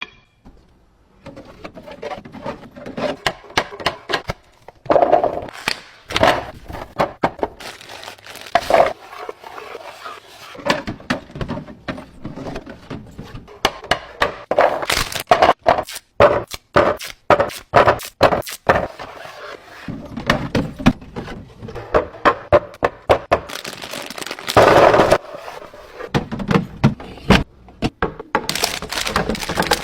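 Groceries, containers and bottles being handled and set down while restocking a refrigerator: a long run of sharp clicks, knocks and clatters, with longer scraping or rustling stretches in between.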